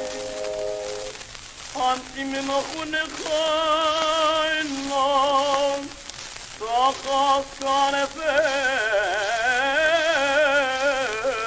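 A held steady chord fades out in the first second. Then a solo voice sings long, sustained notes with a wide vibrato over a steady hiss.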